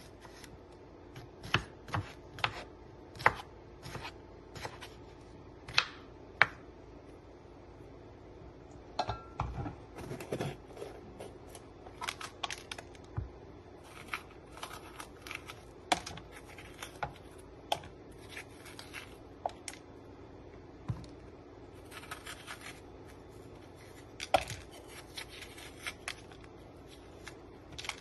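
Kitchen knife cutting cucumber and then a red bell pepper on a wooden cutting board: irregular sharp knocks of the blade striking the board, spaced out at first and coming in quicker runs later, with quieter slicing and scraping between the strokes.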